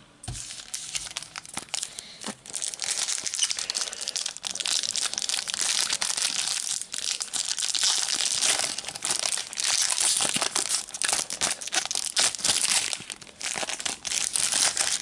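Foil wrapper of a Panini Adrenalyn XL trading-card packet being torn open and crinkled by hand: a dense, continuous crackling full of sharp crinkles.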